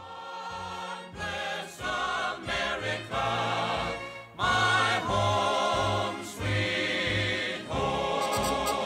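Background music with a choir singing, starting right after a moment of dead silence.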